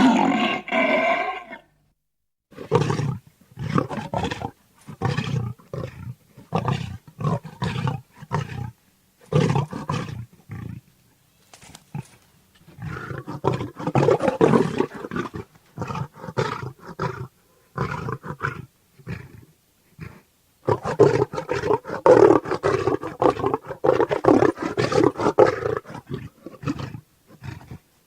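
Bengal tiger roars and calls: one pitched roar at the start, then a string of short calls broken by gaps, and a longer unbroken run of calls near the end.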